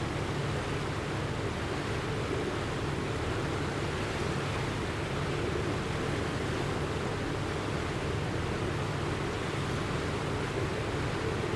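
Flood sound effect: steady rushing water, even and unbroken, heaviest in the low range.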